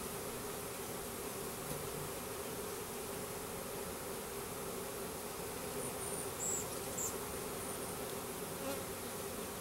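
Steady hum of a package of Russian/Carniolan hybrid honey bees just installed into a hive, buzzing around the open frame tops. A couple of faint high clicks about two-thirds of the way through.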